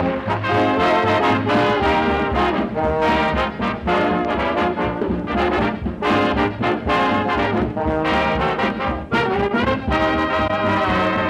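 Background music led by brass instruments, playing quick, short notes in a steady rhythm.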